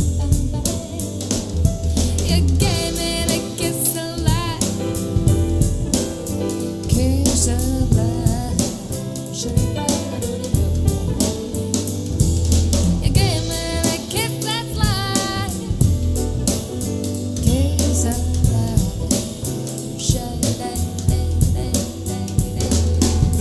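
Soul jazz music with a drum kit keeping a steady beat, a strong bass line and guitar, with a gliding melodic line twice, played back through an in-ear monitor for a sound comparison.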